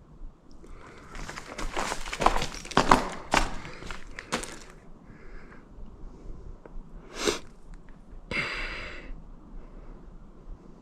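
Footsteps crunching and scraping over rough ground for about four seconds, then a sniff and a breath near the end.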